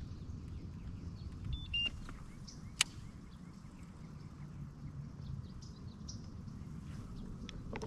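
Outdoor pond-side ambience: a steady low rumble with faint bird chirps. Two short high beeps come about a second and a half in, and a single sharp click follows about a second later.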